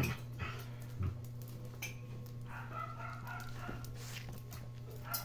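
Puppies playing with a grown dog, giving short yips and whines, mostly in the second half. A few dull thumps come near the start, over a steady low hum.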